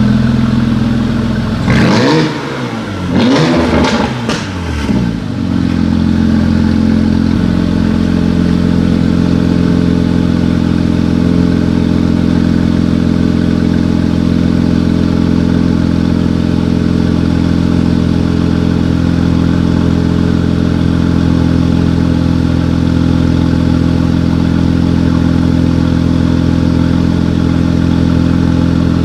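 2016 Porsche Cayenne GTS's twin-turbo V6 blipped quickly a few times, the revs rising and falling within the first few seconds, then settling into a steady idle.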